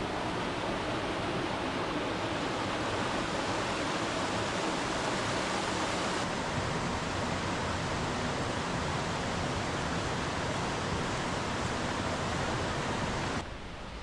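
Mountain stream rushing steadily, running full after the previous day's rain; the rush drops off abruptly near the end.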